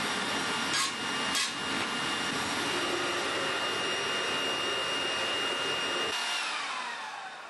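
Foundry furnace's electric air blower running steadily with a high whine. About six seconds in it is switched off, and the whine falls in pitch as the blower spins down. Two short knocks come a second or so after the start.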